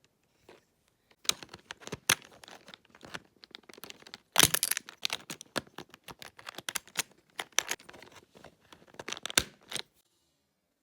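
Irregular plastic clicks and scraping of keycaps being handled on a keyboard, typical of pulling keycaps off and pressing them onto new switches to rearrange the layout. Starts about a second in, with a louder cluster of clicks near the middle, and stops shortly before the end.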